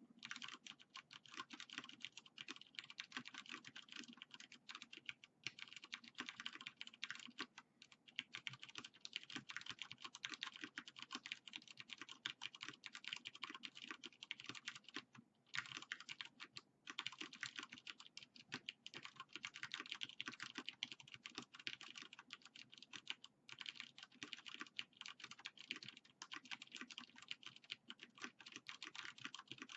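Fast, continuous typing on a Vortex Pok3r 60% mechanical keyboard with tactile Cherry MX Clear switches and PBT Cherry-profile keycaps: a dense run of keystrokes broken by a few short pauses.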